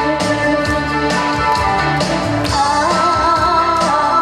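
Recorded backing music for a stage song, with a steady beat and a wavering melody line that comes in about two and a half seconds in.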